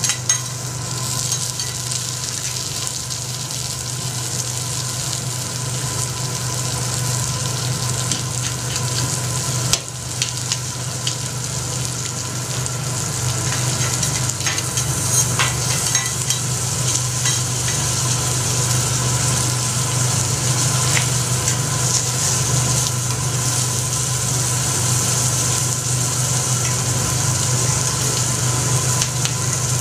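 Food sizzling steadily on a hot teppanyaki iron griddle, with a steady low hum underneath and a few sharp clicks, most around the middle.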